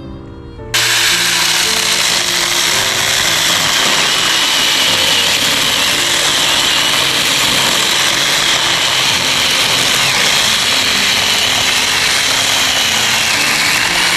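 Mini electric chainsaw starting up sharply about a second in, then running steadily as it cuts through wood, with a high whine that wavers as the chain bites.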